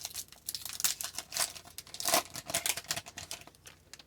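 Foil trading card pack wrapper crinkling and tearing as it is opened, with cards rustling and clicking against each other in a quick irregular run. The sound stops at the very end.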